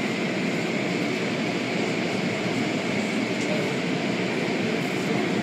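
Automatic car wash equipment running, giving a steady, even rush of machine and spray noise.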